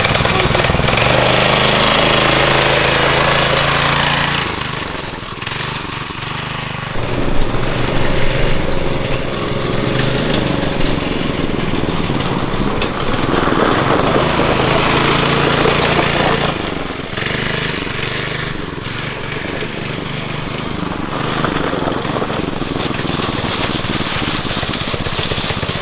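Small single-cylinder engine of a Yerf-Dog 3203 go-kart, a governed 6.5 hp on its stock jet, running under load as the kart is driven, its note rising and falling with the throttle. It is loud for the first few seconds and again from about seven to sixteen seconds in, and eases off in between and near the end.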